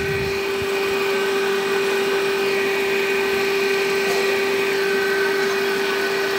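Steady motor hum with one constant tone over a rushing hiss.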